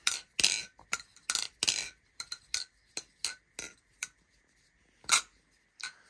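Balisong (butterfly knife) being flipped: a quick, irregular run of sharp metallic clicks and clacks as the handles swing and strike each other. The clicks pause about four seconds in, and a few more come near the end.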